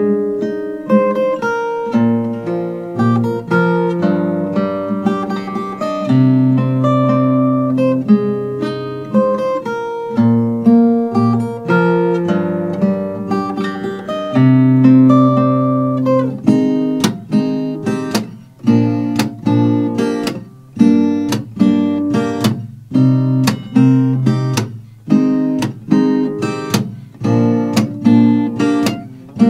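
Steel-string acoustic guitar played fingerstyle, a picked melody over sustained bass notes. A little past halfway it changes to sharp, accented strokes about once a second, each dying away before the next.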